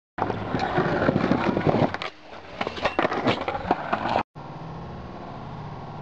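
Skateboard wheels rolling over rough asphalt, with a loud rumble and many sharp clacks and knocks, for about four seconds. It then cuts off suddenly and gives way to a quieter, steady even background noise.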